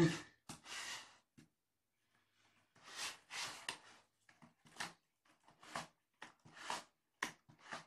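Short, dry scratching scrapes on a cardboard scratch pad from a kitten working at it. They come in an irregular series, a few at first, then after a pause of about a second roughly two a second.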